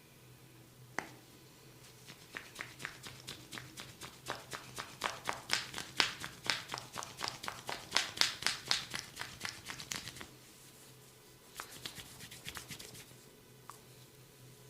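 Hands slapping rapidly on a head during a massage. The run of sharp slaps builds to its loudest in the middle, stops about ten seconds in, and a short burst of slaps follows near the end.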